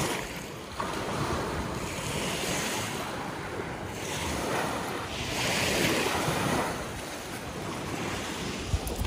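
Small lake waves washing in and out on a stony beach, swelling twice, with wind buffeting the microphone. A couple of light clicks near the end.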